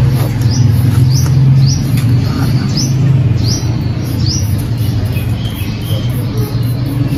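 A small bird giving short high chirps, roughly one every half second, that die away about two-thirds of the way in. Under them runs a loud, steady low rumble.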